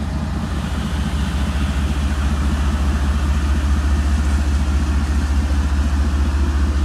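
CSX diesel-electric freight locomotive's engine running as the locomotive crawls slowly past close by: a steady low throb that grows a little louder.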